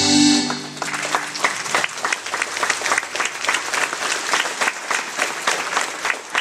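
Guitar music ends on a held final chord about half a second in, then the congregation applauds with a dense, steady clapping.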